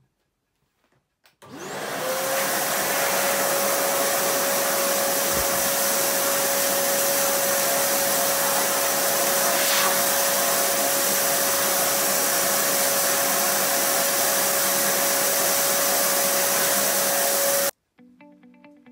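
Homstar HS-VC2300 Turbo Power vacuum cleaner switched on about a second and a half in: the motor spins up with a quickly rising whine over a rush of air, runs steadily, then cuts off suddenly near the end.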